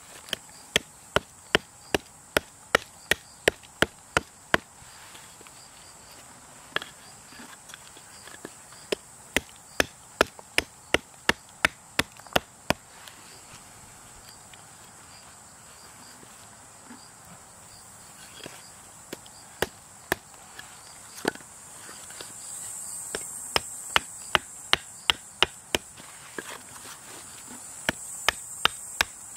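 Small carving hatchet hewing a wooden spoon blank on a log block: runs of sharp chopping strikes, about two or three a second, with short pauses between the runs.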